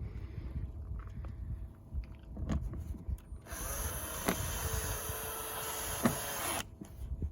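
Cordless power drill-driver running for about three seconds, driving a screw as the generator's housing is fastened back together, with small clicks and knocks of handling before it.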